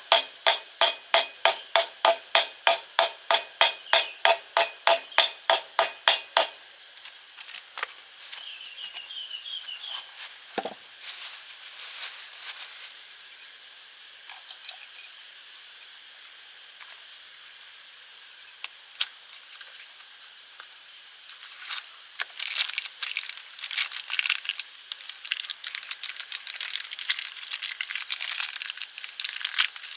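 Hammer striking metal in quick, even, ringing blows, about four a second, stopping about six seconds in. Then quieter scattered clinks of tools being handled, with scraping and rustling near the end.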